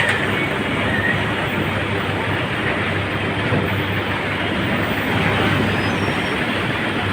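John Deere tractor engine running steadily, with a dense, even noise and a constant low hum.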